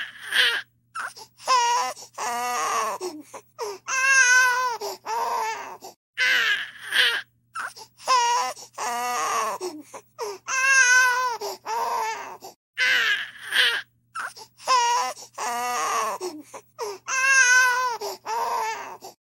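A baby crying: a run of short, wavering wails with brief gaps for breath. The same sequence of cries repeats about every six and a half seconds, as in a looped sound effect.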